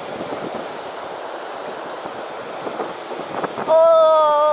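Steady rush of river water pouring over a weir, with wind on the microphone. About three and a half seconds in, a loud, steady pitched tone starts and holds.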